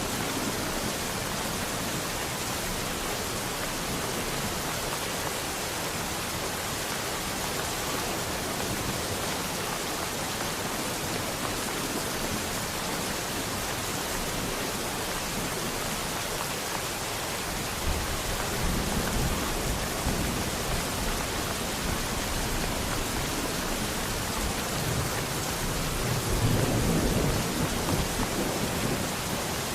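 Steady rain, an even hiss with no break. A low rumble of thunder rolls in about two thirds of the way through and swells again near the end.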